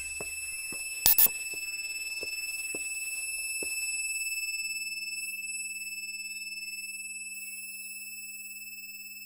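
Steady high-pitched electronic tone, like a sine-wave alarm, with a sharp double beep about a second in and faint regular ticks about three times a second that stop about four seconds in, after which a low steady hum comes in.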